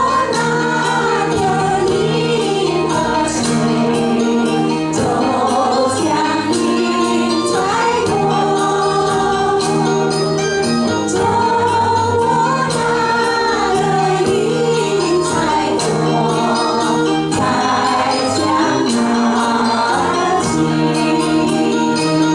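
An amateur choir of group voices singing a Chinese song in unison, with long held notes over instrumental accompaniment that has a steady beat.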